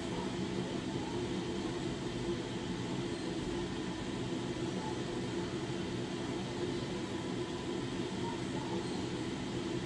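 Electric blower motor of a K&N Air Flow Demonstrator running steadily, drawing air in through a K&N cone air filter: an even motor hum over a steady rush of air.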